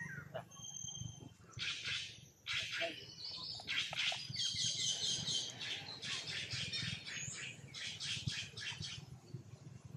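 High-pitched chirping calls, coming in rapid pulsing bursts from about a second and a half in until near the end, over a low steady hum.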